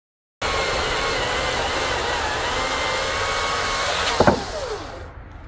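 Greenworks Commercial 82V cordless chainsaw cutting through an oak log under load, a steady motor whine that cuts in abruptly. About four seconds in, the cut ends with a sharp knock and the motor winds down in a falling whine.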